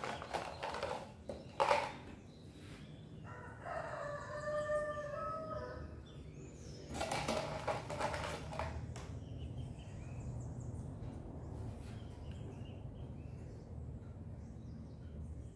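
A rooster crowing once, one drawn-out crow of about two and a half seconds starting about three and a half seconds in. A few sharp knocks and rustling from handling come before and after it.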